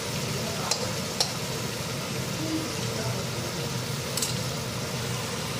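Prawns frying in oil in a metal kadai, sizzling steadily. A metal spatula clinks against the pan a few times as they are turned.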